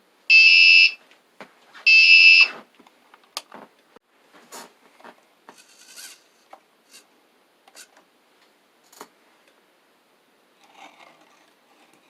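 An electronic buzzer beeps twice, loud and shrill, each beep about half a second long and the two about a second and a half apart. Scattered light clicks and taps follow.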